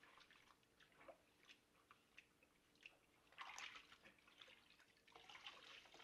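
Faint sloshing, dripping and splashing of soapy water as a fabric motorcycle helmet liner is squeezed like a sponge in a plastic bowl in the sink. There is a louder splash about three and a half seconds in.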